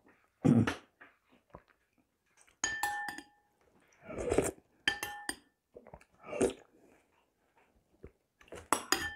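Metal spoon clinking against a porcelain soup bowl about three times, each clink ringing briefly, with sipping and slurping of soup from the spoon in between.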